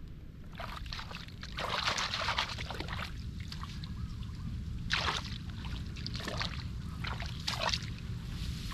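Shallow muddy water splashing and sloshing in irregular bursts as it is stirred and waded through by hand, over a steady low rumble.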